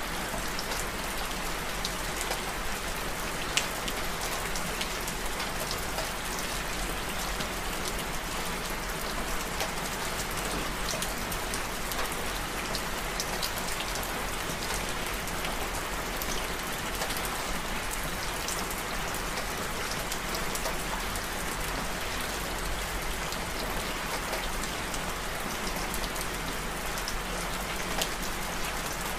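Steady rain: an even hiss with many separate drops ticking in it, a couple of them sharper and louder.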